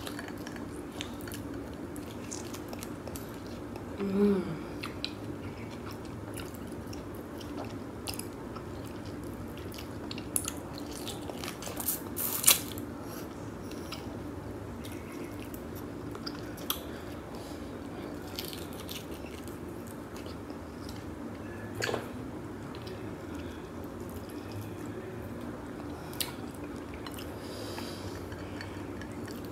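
Close-up eating of blue crab by hand: scattered cracks and clicks of crab shell and legs being pulled apart, with chewing and sucking at the meat. The sharpest crack comes about twelve seconds in, and a short closed-mouth hum comes about four seconds in.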